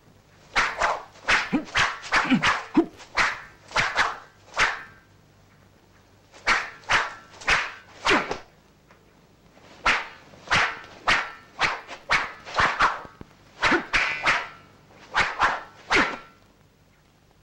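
A long staff swishing through the air in fast swings: kung fu film sound-effect whooshes, about two or three a second, in four runs separated by short pauses.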